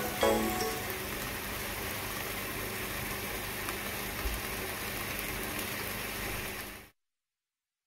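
Bacon slices sizzling in a nonstick frying pan: a steady hiss that cuts off suddenly about a second before the end.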